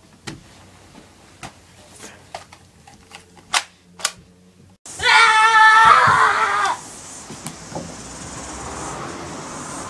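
Light clicks and knocks of a phone being tossed down and a plastic toy shotgun being handled, then a child's loud, drawn-out yell lasting about two seconds, followed by steady outdoor background hiss.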